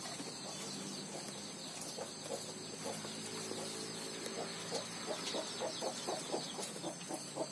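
Chickens clucking, the clucks coming quicker, several a second, in the second half, with small birds chirping faintly.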